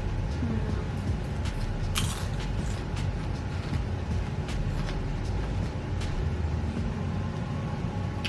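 Chips crunching as they are chewed, a scattered series of sharp crackles, the loudest about two seconds in, over a steady low rumble.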